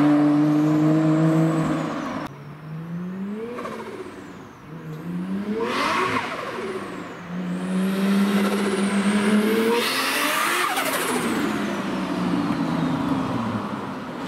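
Turbocharged Toyota 1JZ straight-six in a Nissan S14 accelerating hard up the street, the revs climbing in several rising pulls. The sound drops sharply about two seconds in, between pulls.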